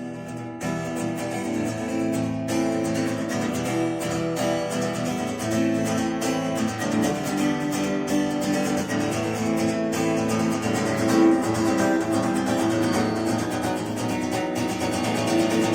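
Instrumental song intro led by a strummed acoustic guitar, steady throughout, before the singing starts.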